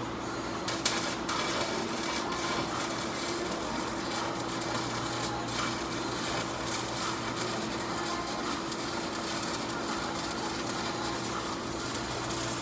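Stick welding arc crackling and sizzling steadily against the steel floor of a dump truck bed, struck with a sharp pop about a second in, over a steady low hum.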